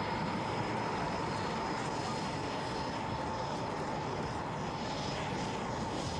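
Bloodhound SSC's Rolls-Royce EJ200 jet engine running as the car moves down the runway: a steady rushing jet noise with a constant high whine.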